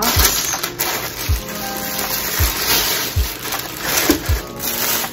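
Background music with a low kick-drum beat about once a second, over the crinkling rustle of a plastic wrapping bag as a shoe is pulled out of its box.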